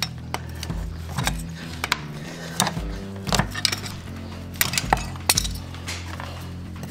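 Sharp metallic clinks and clicks, irregular and bunched near the end, from farrier's pincers gripping and working an old horseshoe off the hoof, over background music with a steady beat.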